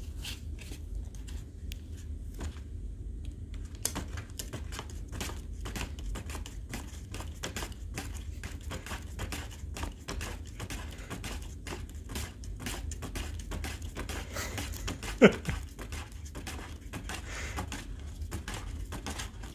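A cat rummages among loose paper sheets and cardboard inside a cardboard box, making a stream of small crinkles, scrapes and taps. The sounds are sparse at first and grow busier about four seconds in. There is one sharp knock about fifteen seconds in.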